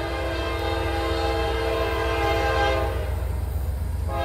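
Horn of an approaching CSX GE ES44AH freight locomotive sounding a long multi-note chord that cuts off about three seconds in, then starts again near the end. A steady low rumble runs underneath.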